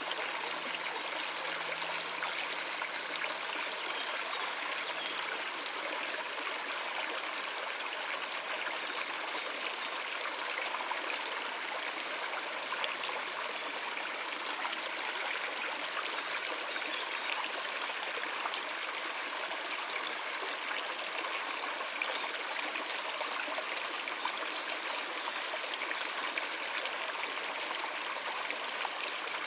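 Shallow stream running over rocks: a steady, even rushing and trickling of water.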